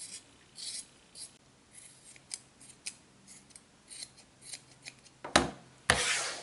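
Scissors snipping again and again as they trim the ends of a yarn tassel to even it. Near the end there is a louder knock, then a longer rubbing sweep, as the scissors are put down and a hand brushes across the cutting mat.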